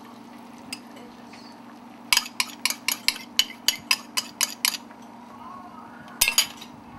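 A utensil clinking against a bowl, about a dozen quick taps at roughly four a second, knocking the last of the beaten eggs into the pan, then two more knocks near the end. A steady low hum runs underneath.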